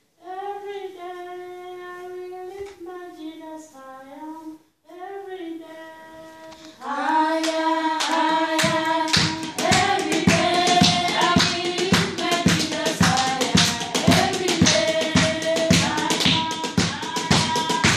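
A worship song sung by a single voice, joined about seven seconds in by a group of voices singing together with rhythmic hand clapping.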